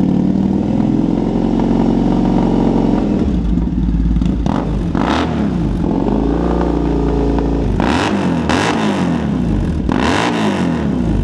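Triumph Bonneville T120's 1200 cc parallel-twin engine idling steadily, then revved with about four throttle blips that rise and fall in the second half.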